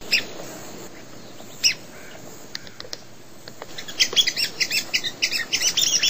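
Birds calling in short, high chirps, a few scattered at first, then a rapid, dense run of repeated calls from about four seconds in.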